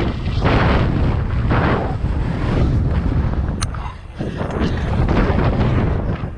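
Wind buffeting a helmet-mounted camera's microphone and a mountain bike's tyres rumbling over a dirt trail at speed on a downhill descent, in rough surges, easing briefly about four seconds in. A single sharp click sounds just before that lull.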